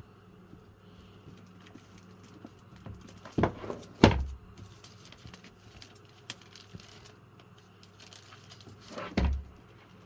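Handling noises: scattered light clicks and taps over a faint steady hum, with loud heavy thumps about three and a half seconds in, again around four seconds, and near nine seconds.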